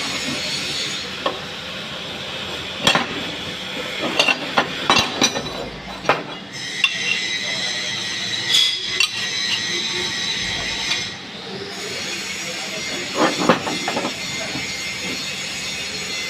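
Welding-shop metalwork: a steady hiss with sharp metallic clinks and knocks in small clusters, about three seconds in, around four to five seconds in, and again near the end.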